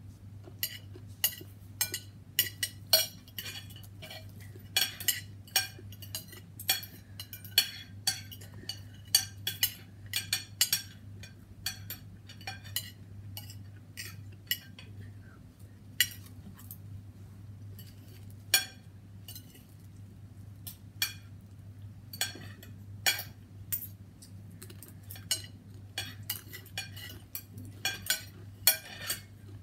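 Metal spoon and fork clinking and scraping against a plate in many irregular sharp clicks as food is served, over a steady low hum.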